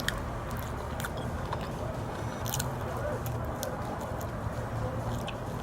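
Close-miked chewing of chicken and sweet plantains, with scattered wet mouth clicks over a steady low rumble.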